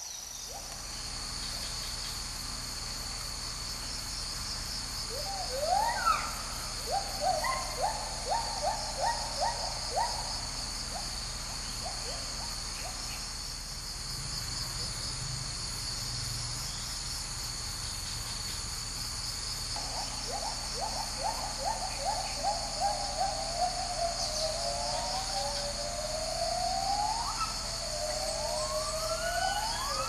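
Agile gibbon great call: a series of short rising notes that speed up, then a pause, then another quickening run that builds into long upward-gliding whoops near the end. A steady, high-pitched insect chorus runs underneath.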